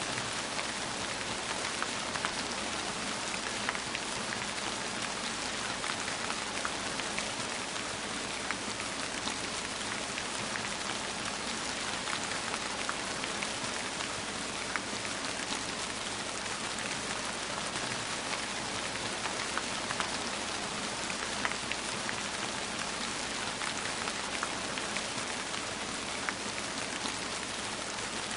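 Steady rain falling on a surface, an even hiss with scattered individual drops ticking through it.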